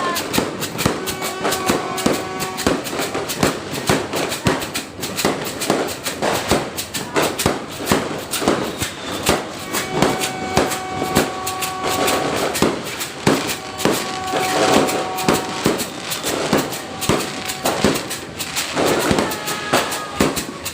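New Year fireworks and firecrackers going off without a break: a dense, irregular run of cracks and bangs, several a second. A few steady held tones sound over them now and then.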